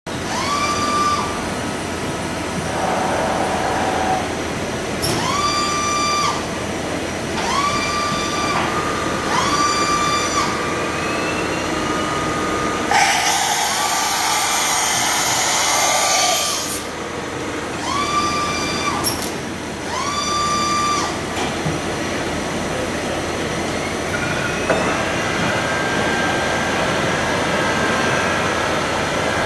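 1991 Maho MH 600 E2 CNC milling machine running: a series of short electric whines, each about a second long, that rise, hold and drop back, one after another. About halfway a loud hiss lasts a few seconds, and near the end a steady whine sets in.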